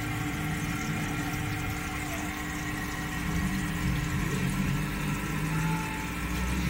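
Steady hum of a running motor, with several constant tones over a low rumble and no change in pace.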